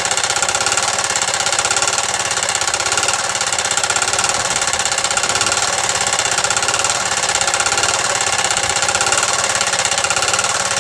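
Gasoline-powered air compressor's 3 HP Briggs & Stratton single-cylinder engine running steadily, with a rapid, even pulsing, while the pump compresses air.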